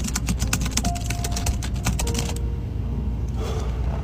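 Rapid typing on a computer keyboard, a fast run of clicks that stops about two and a half seconds in, over a steady low hum.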